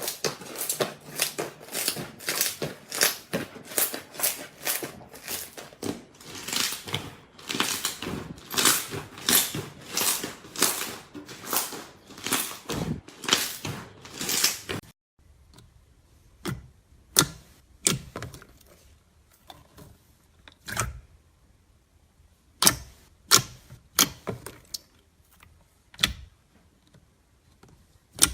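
Slime being squeezed and poked by hand, giving rapid sharp sticky clicks and pops, several a second. About halfway the clicking abruptly turns sparse: single sharp pops, a second or more apart, with quiet between.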